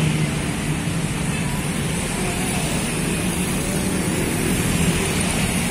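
Road traffic: a steady engine drone from an intercity bus pulling in to the roadside, with motorcycles passing.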